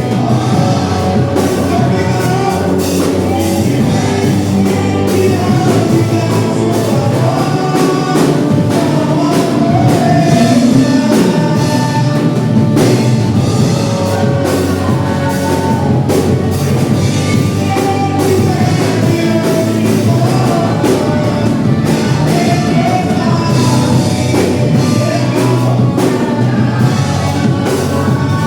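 Live worship band music with a singing voice, played steadily at full volume.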